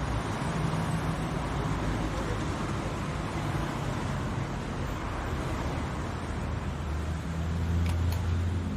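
Steady street traffic noise with a low engine hum that grows stronger near the end, then cuts off suddenly.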